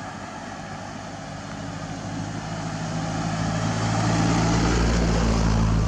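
A motor vehicle's engine running nearby and growing steadily louder as it approaches, loudest near the end.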